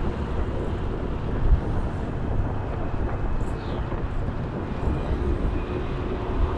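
Steady low rumble of wind and road noise on the camera of a moving motorcycle, with a brief louder bump about a second and a half in.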